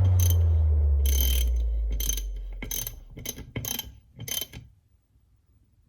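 A low hum fades out over the first two seconds or so. Through it and after it come scattered short, sharp metallic clicks from hand tools on the motorcycle engine, irregular and growing fainter.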